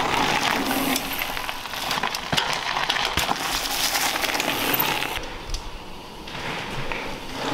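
Mountain bike riding over a dirt trail: tyres crunching on the loose surface, with many rattling clicks from the bike. Briefly quieter about five seconds in, then the rolling noise returns.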